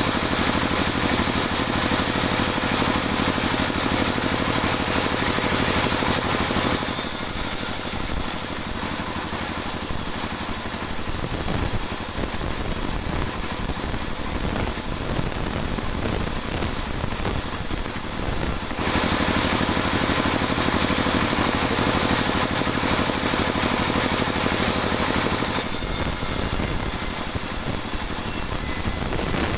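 Sawmill band saw running and ripping dry teak offcuts into 2 cm boards: a steady mechanical noise with a high hiss that thins out about seven seconds in, comes back about nineteen seconds in and thins again near the end.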